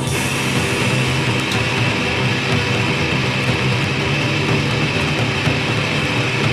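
Instrumental noise pop band recording: a dense, loud wash of distorted electric guitars with no singing, and a steady high ringing tone entering at the start.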